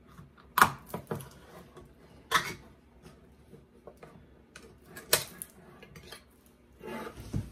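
Kitchen items being handled and set down on a granite countertop: a handful of separate sharp knocks and clinks, spread out, with a softer rustle near the end.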